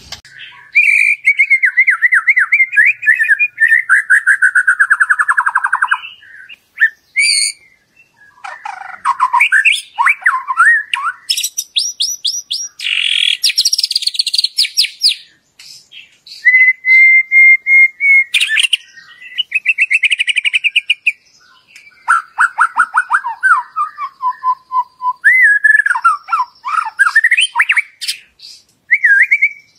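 White-rumped shama singing loudly: a varied run of whistled phrases, fast trills and rising and falling notes, broken by short pauses, with one held steady whistle about midway.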